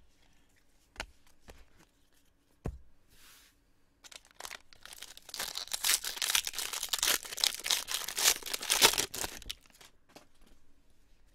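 Foil wrapper of a 2019 Bowman Jumbo baseball card pack being torn open and crinkled for about five seconds, starting around four seconds in. It is preceded by a few light clicks.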